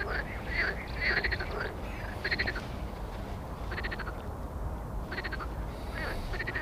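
Frogs calling: a series of short rattling calls made of rapid pulses, one every second or so, over a steady low rumble.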